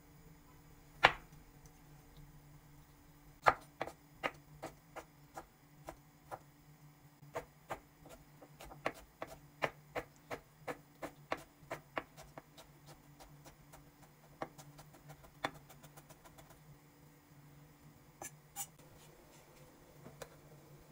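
Chef's knife chopping a dill pickle on an end-grain wooden cutting board: a few separate knocks at first, then a quick run of about three chops a second in the middle, thinning out to occasional taps.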